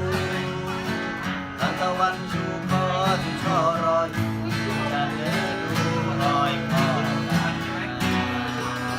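Instrumental passage of a Thai song: guitar and bass under a wavering melodic lead line, with no vocals.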